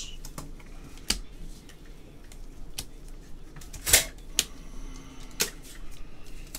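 Trading cards being handled in gloved hands: scattered clicks and snaps of card stock as the cards are flicked through and set down, the sharpest snap about four seconds in.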